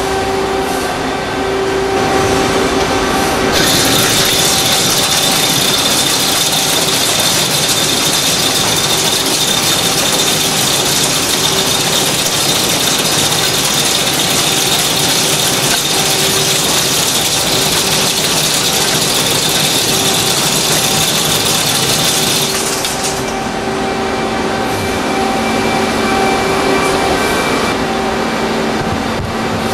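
Nakamura-Tome SC-300II CNC lathe running with a steady machine hum. A few seconds in, the tool starts a heavy outside-diameter turning cut, 9 mm deep at 0.5 mm per revolution, and a loud, dense cutting hiss covers the hum. It stops about twenty seconds later, when the hum returns with a lower tone added.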